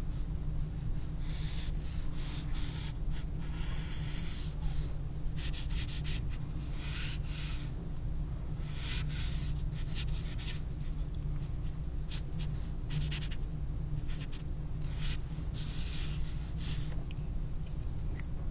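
A broad-nibbed Copic Wide marker drawn across paper in many short and longer strokes, each a scratchy hiss, going over pencil lines to darken them. A steady low hum runs underneath.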